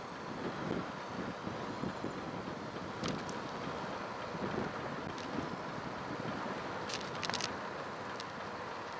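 Wind rushing over the microphone while on the move along a road, with a few sharp clicks about three seconds in, about five seconds in, in a quick cluster near seven seconds, and once more near eight seconds.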